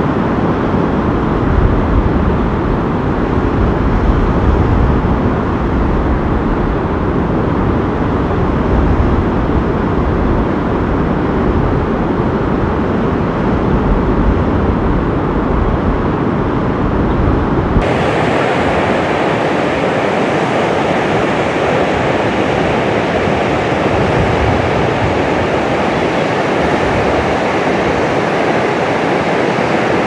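Barachukki waterfall's loud, steady roar of cascading water. A deep rumble dominates the first part; about 18 s in the sound cuts abruptly to a brighter, hissier roar with much less low end.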